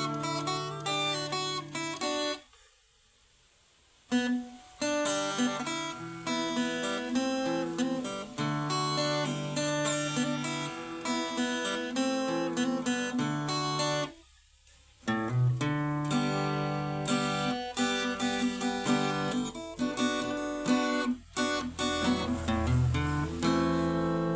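Acoustic guitar being played, picking notes and chords over held bass notes. It stops briefly twice, about two and a half seconds in and again about fourteen seconds in.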